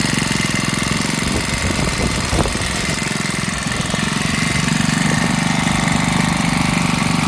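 Robin BH2510 brush cutter's small four-stroke OHV engine running steadily. Its note wavers for a couple of seconds, then settles to a stronger, even run.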